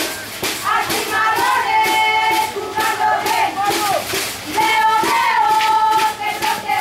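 Young voices cheering and chanting in long, high-pitched held calls, dipping briefly in the middle.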